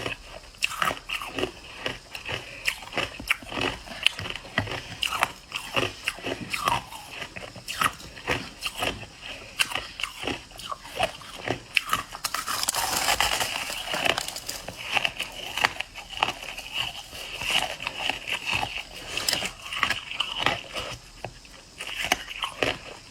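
Crushed ice being bitten and chewed close to the microphone: rapid, irregular crunches, with a denser, louder stretch of crackling about halfway through.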